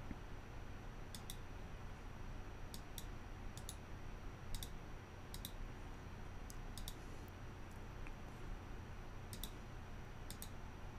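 Computer mouse clicking about a dozen times, several as quick double clicks, over a faint steady hum.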